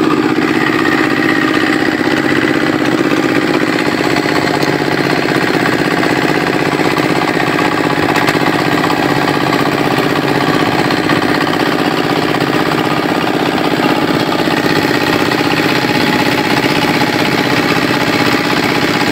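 A fishing boat's engine running steadily at an even speed, with no change in pace.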